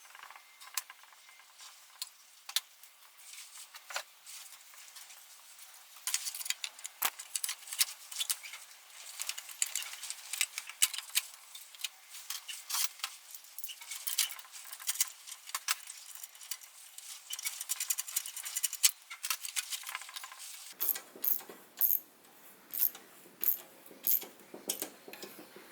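Hand tools and small metal engine parts clicking and clinking as they are handled and fitted, sparse at first, then a dense run of light metallic ticks, with heavier knocks near the end.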